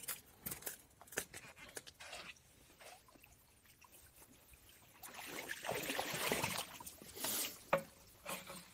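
Landing net swept through shallow icy water and lifted out, splashing and streaming water for a couple of seconds just past the middle. Scattered light knocks and clicks come before it, and a sharp knock follows near the end.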